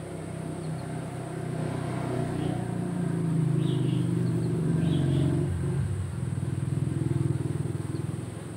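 A motor vehicle's engine passing close by: it grows louder over the first few seconds, peaks around the middle, then fades after about five and a half seconds.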